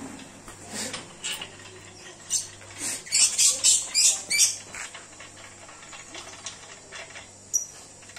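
A quick run of about six short, sharp metallic clinks and scrapes about three seconds in, with scattered lighter clicks around them. They come from hands working the chain-driven carriage of a mechanical drilling rig while it is taken apart.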